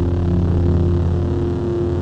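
Lightsaber sound effect: a steady low electric hum made of several held tones, swelling and easing slightly.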